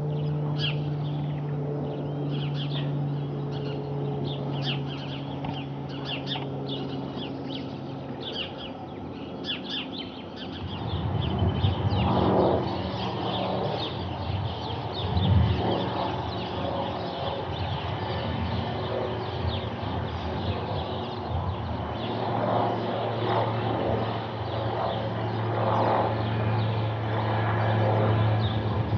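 Steady drone of a single-engine turboprop aeroplane flying overhead, with small birds chirping over it. About ten seconds in the sound changes to the drone of a light ultralight propeller aeroplane, which grows louder near the end.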